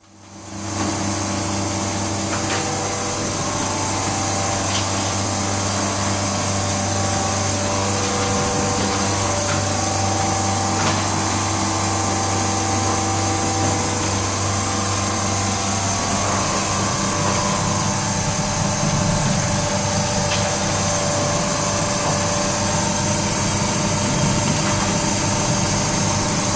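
Ben Nevis egg grader running: a steady machine hum under a loud, even hiss, with a few faint clicks.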